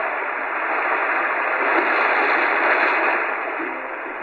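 Shortwave static from the Tecsun PL-398BT's speaker: a steady hiss heard as the radio's automatic browse scan pauses on a frequency. It eases slightly near the end.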